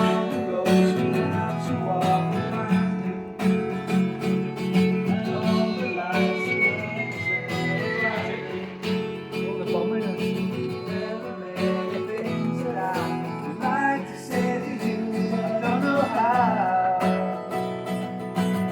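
Acoustic guitar strummed steadily in chords, with a voice or two gliding over it at times.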